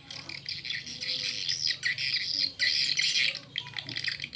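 Recorded swiftlet calls, a lure sound for drawing swiftlets to a nest house, played through small square horn tweeters on a swiftlet-house amplifier. The dense, high twittering chirps start suddenly as playback begins and continue with only brief gaps.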